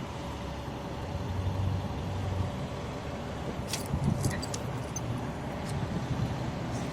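Steady low rumble of an idling car engine, with a few faint short clicks about midway and near the end.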